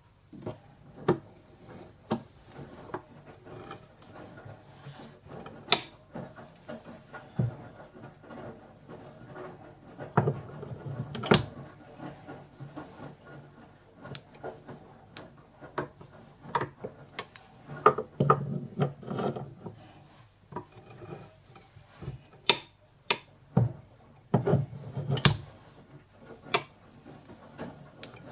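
Hand-tapping an M8 thread in a metal part held in the lathe: the tap scraping and creaking as the tap wrench is turned in short strokes, with irregular clicks and knocks of the wrench and tap follower.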